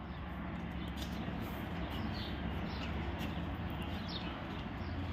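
Faint bird chirps, a few short downward-sliding calls spaced a second or more apart, over a steady low background hum.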